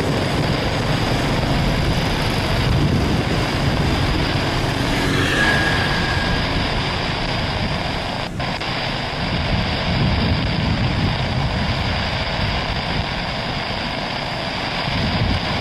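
Twin-engine widebody jetliner's turbofans at takeoff thrust through the takeoff roll, rotation and lift-off: a loud, continuous jet rush with a steady high whine over it.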